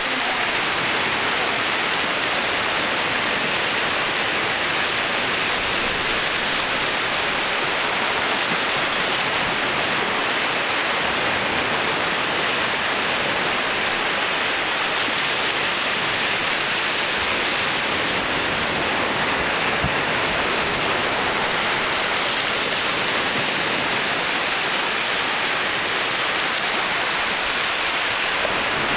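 Ocean surf washing onto a sandy beach: a steady, even rush of noise with no separate wave crashes standing out.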